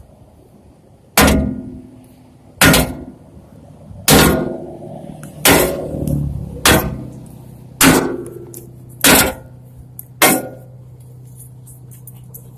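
A sledgehammer striking a bent aluminum trailer fender, eight ringing clangs about one every second and a quarter, beating it back into shape after a tire blowout. A steady low hum comes in about halfway through.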